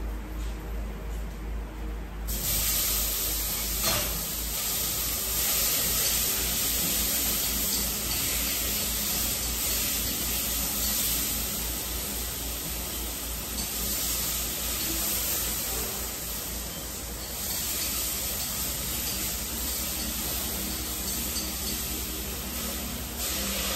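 Food sizzling in a hot pan as it is stir-fried, a loud steady hiss that starts suddenly about two seconds in, with a single knock a couple of seconds later.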